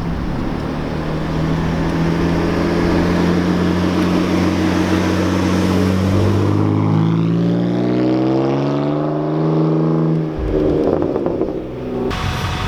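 Car engine running steadily, then revving up with a rising note for several seconds, which breaks off about ten seconds in.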